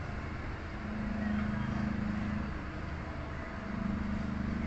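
Motor vehicle engines running, a low drone that swells about a second in and again near the end, over a steady traffic hiss.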